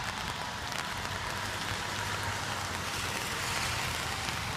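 Steady rain: an even hiss with scattered fine drop ticks, over a low steady hum.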